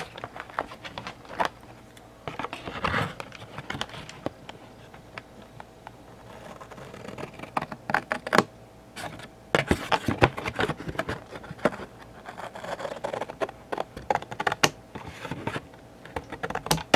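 Cardboard Funko Pop box being handled and broken down by hand: irregular rustling, scraping and tapping of thin printed cardboard panels and the clear plastic window. The sharper clicks and crackles come thicker and louder in the second half.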